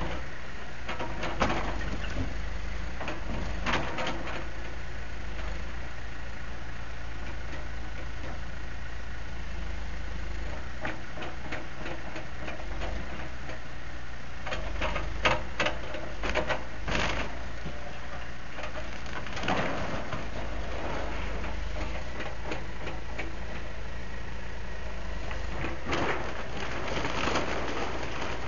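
Backhoe's diesel engine running with a steady low rumble, with scattered knocks and clanks of metal and debris, clustered about halfway through and near the end.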